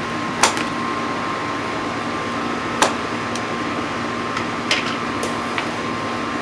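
Steady hum of an air conditioner or fan with a few sharp snips and clicks from scissors cutting the TV box's packing tape or straps; the two loudest come about half a second and about three seconds in.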